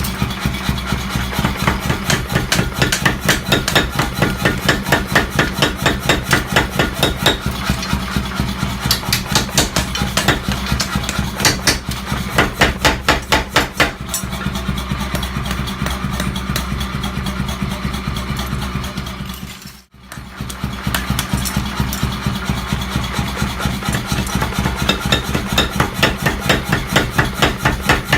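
Rapid, evenly paced hammer blows, about five a second, forging sickle steel over a steady motor hum, broken by a short gap about twenty seconds in.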